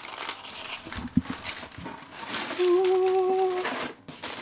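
Paper and cardboard rustling as a shoebox is opened and unpacked by hand, with a brief steady hum about two-thirds of the way through.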